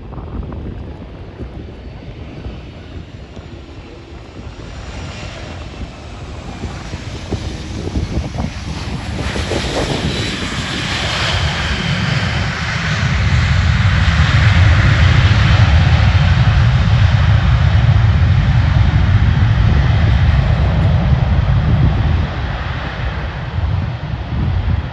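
A fixed-wing aircraft's engines passing close. The sound builds to a loud, steady rumble, then eases slightly near the end.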